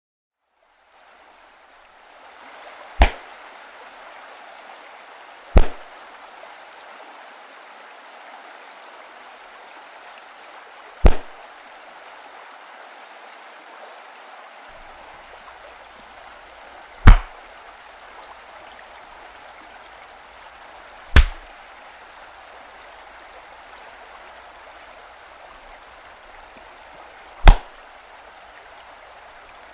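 Bighorn sheep rams clashing heads in the rut: six sharp, loud cracks of horn on horn, spaced several seconds apart, over a steady rushing noise.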